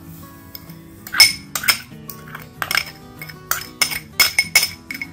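A metal spoon clinking and tapping against a stainless-steel grinder cup and a serving bowl as granulated sugar is poured and scraped in, with quick sharp clinks starting about a second in. Soft background music runs underneath.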